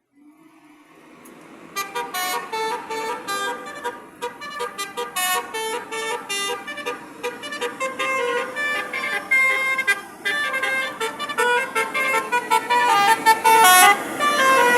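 A truck's basuri multi-tone musical air horn playing a fast tune of stepping notes; it swells in from a low hum and the melody starts about two seconds in.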